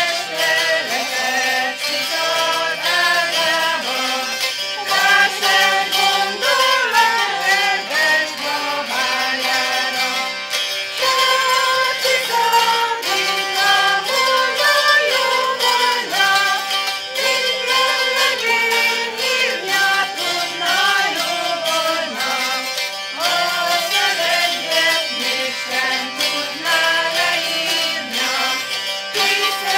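Live traditional folk music, a melody moving over a steady accompaniment.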